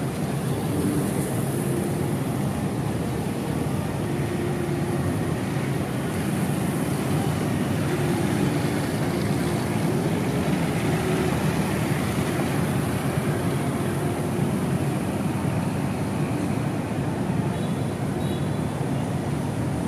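Steady street traffic noise: a low rumble of idling and passing vehicle engines, with faint engine hum coming and going and a steady high hiss.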